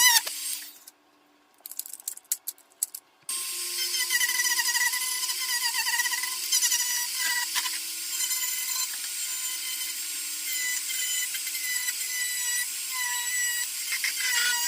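Dremel 4300 rotary tool carving wood, its high whine wavering in pitch as the bit bites into the wood. It winds down just after the start, falls quiet for about two and a half seconds apart from a few light clicks, then starts up again and keeps running.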